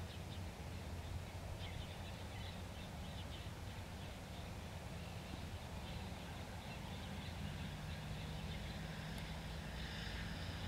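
A steady low engine-like rumble, with a steady low hum joining about two-thirds of the way through. Faint, scattered bird chirps sit above it, mostly in the first few seconds.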